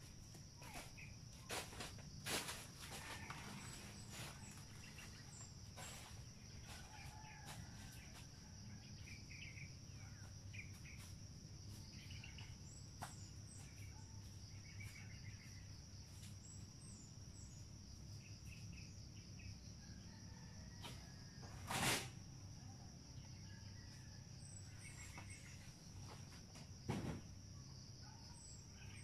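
A steady high-pitched insect drone with scattered bird chirps over it. A few sharp knocks cut in, the loudest about three-quarters of the way through.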